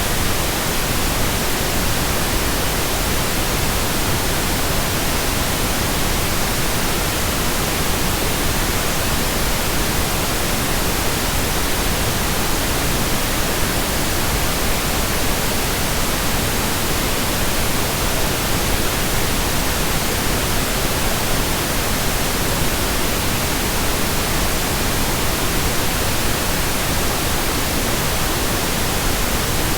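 Steady pink noise: an even, unbroken hiss spread from the lowest to the highest pitches, with no changes.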